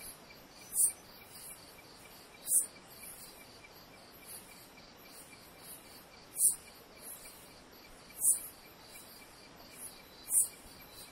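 Insects trilling faintly and steadily, with about five short, very high chirps at uneven intervals.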